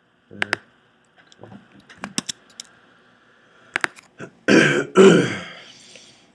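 A few sharp clicks, then a man clearing his throat in two loud coughs about four and a half seconds in, the loudest sound.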